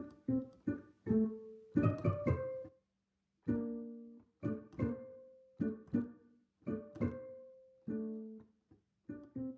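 Background music of a plucked string instrument playing single notes and short phrases, each note dying away, with a brief pause about three seconds in and another near the end.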